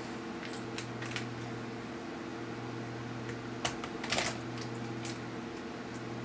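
Small screws and a screwdriver handled on the laptop's metal screen brackets: a few light clicks and taps, with a short cluster about four seconds in, over a steady low hum.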